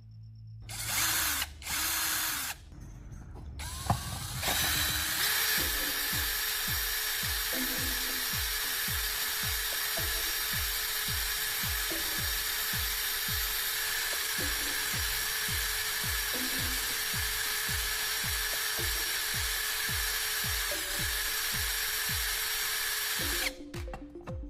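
Electric drill spinning a battery's carbon rod against sandpaper to round its end, a steady grinding hiss. Two short bursts about a second in, then it runs continuously from about four seconds until it stops near the end.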